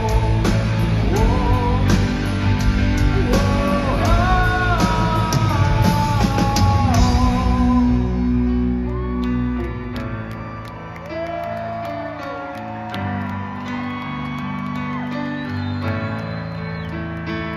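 Live rock band playing in a large hall: drums with cymbal crashes and electric guitar under a sliding lead melody. About eight seconds in the band thins out to piano with soft held notes and a quieter lead line.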